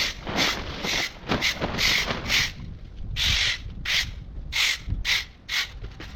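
Hand saw cutting through a tree branch: rasping back-and-forth strokes about two a second, with one longer stroke about three seconds in.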